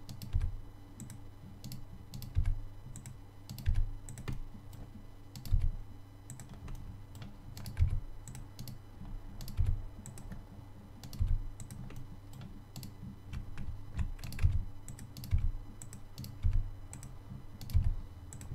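Computer keyboard keystrokes, irregular and sparse, about one or two a second, each with a dull low knock.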